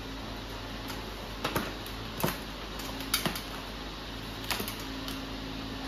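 Yellow plastic end pieces of a Hive IQ polystyrene hive lid clicking and knocking as they are pressed into place: about five sharp, separate clicks spread out, over a steady low hum.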